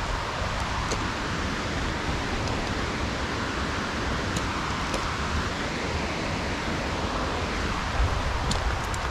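Steady hiss of light rain, with a few faint ticks of drops landing close by.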